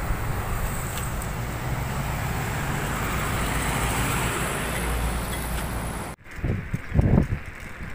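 Road traffic passing close by with wind noise on the microphone, a steady rumble of cars and tyres. About six seconds in the sound cuts off abruptly, and a few low wind thumps follow.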